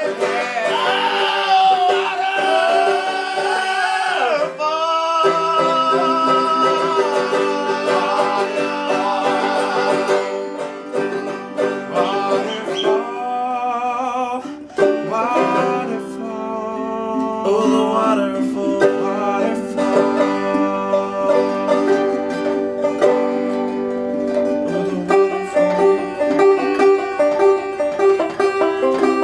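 Music: a song with plucked strings and singing.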